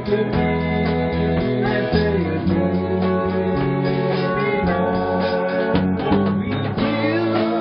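Music: guitar playing with a voice singing over it.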